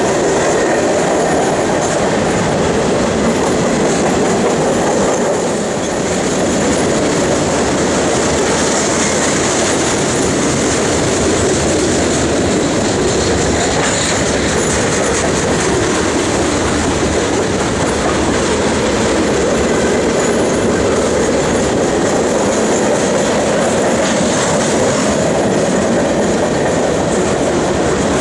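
Freight cars of a long mixed freight train rolling past: a steady, loud rolling noise of steel wheels on the rails, with the clatter of the cars.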